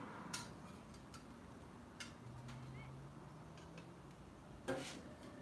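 Scattered light clicks and taps of a metal spatula on a flat-top griddle and a ceramic plate while food is plated, with one louder knock near the end.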